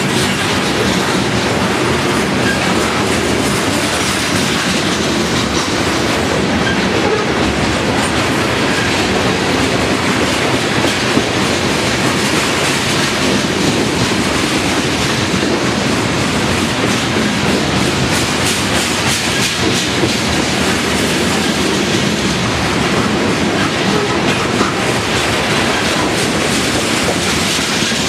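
Freight train of covered hopper cars rolling past close by: a steady, loud rumble of steel wheels on rail with a continual clicking as the wheels pass over the track.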